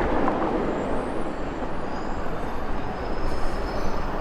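Street traffic with a bus running close by: a steady low engine and road noise.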